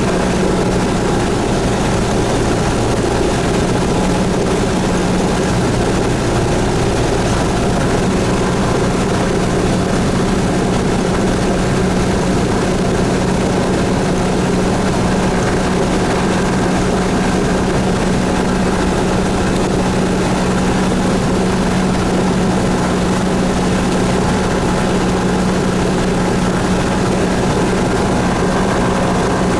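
Cessna 172S's four-cylinder Lycoming IO-360 piston engine and propeller running at a steady, unchanging pitch.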